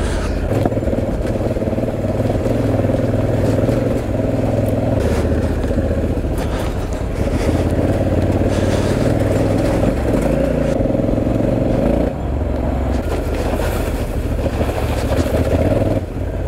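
Honda Africa Twin's 1084 cc parallel-twin engine running under the rider at low speed on a rough track. The engine note steps down briefly about twelve seconds in and again near the end as the throttle changes.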